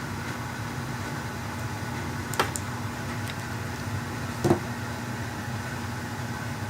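Two sharp snaps about two seconds apart, the second louder: a homemade battery tab welder firing as it welds a tab onto an 18650 cell. A steady low hum underneath.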